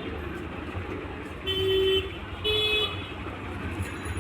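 A vehicle horn honks twice, each blast about half a second long, over a steady low rumble of road traffic.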